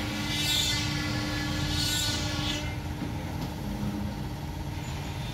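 CNC router machinery running with a steady hum and a high, multi-toned whine, with a few brief hissing surges in the first half. The high whine fades out about halfway through, leaving the low hum.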